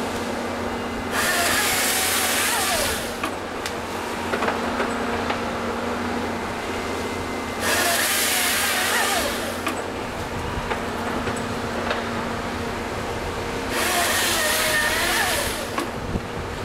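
Volvo EC210 excavator's diesel engine running steadily under hydraulic load while its LogMax 7000XT harvester head processes a eucalyptus stem. The head's hydraulic chain saw makes three cross-cuts, each lasting about two seconds and spaced about six seconds apart. Scattered knocks come between the cuts as the stem is fed through the head.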